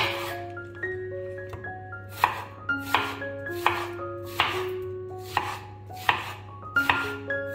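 A kitchen knife slicing through a peeled onion and striking a bamboo cutting board, with a cut about every second and some in quick pairs. A gentle melody of held notes plays underneath.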